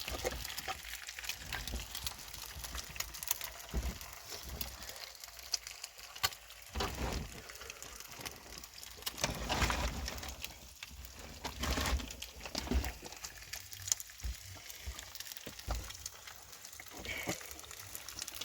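Wood fire crackling with scattered pops, and a few louder handling noises around the middle.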